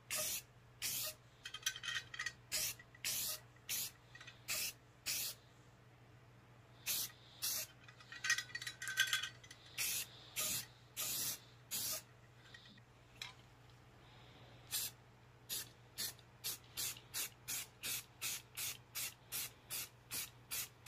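Aerosol spray-paint can sprayed in short hissing bursts, with a rattling twice between bursts, like the can's mixing ball being shaken. Near the end the bursts come quickly and evenly, about two a second.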